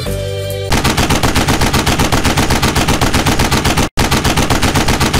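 Rapid automatic machine-gun fire, a dubbed-in sound effect, at about eight or nine shots a second. It starts under a second in, breaks off for an instant just before four seconds, then carries on.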